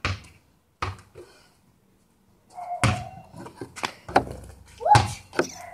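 About four separate heavy thuds of a basketball being thrown at a hoop mounted on a garage, striking the board and wall and bouncing.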